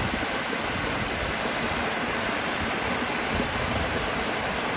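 Rain-swollen waterfall at a lake's overflow rushing as white water, a steady, even roar of falling water where there is usually only a trickle.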